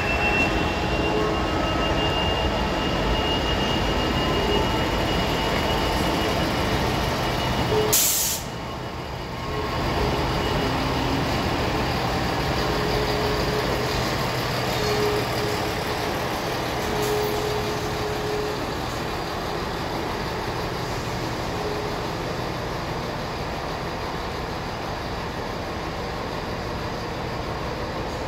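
A Northern diesel multiple unit running at the platform, with a high whine that rises and then holds steady, cut off by a sharp click about eight seconds in. Then a Class 66 diesel freight locomotive running light, its two-stroke V12 engine thrumming steadily and slowly fading as it draws away.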